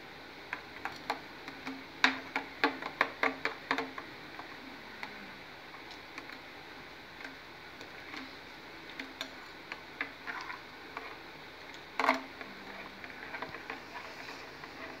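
Metal spoon stirring a thin milk-and-egg mixture in a ribbed glass bowl, clinking against the glass in irregular light ticks. There is a quick run of clinks about two to four seconds in and a louder one near twelve seconds.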